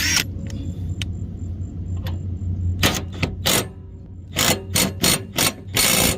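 Impact wrench with a 24mm socket driving a riding-mower blade bolt tight, in a run of short trigger bursts: three quick ones about three seconds in, then four more and a longer final burst near the end. A steady low hum sits underneath in the first half.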